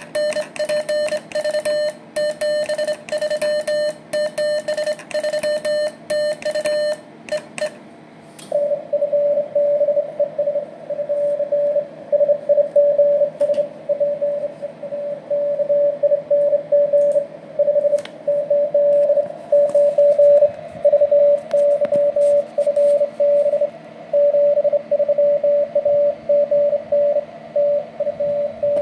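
Morse code sent on a brass bug (semi-automatic telegraph key), heard as a keyed sidetone beep of about 600 Hz with sharp clicks on each element. About eight seconds in, the sending stops and a faster, steadier stream of CW at the same pitch comes from the receiver over band noise: the other station's reply.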